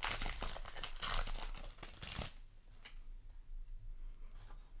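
Weiß Schwarz trading card booster pack being torn open, its wrapper tearing and crinkling for about two seconds. Then it goes much quieter, with a few faint ticks.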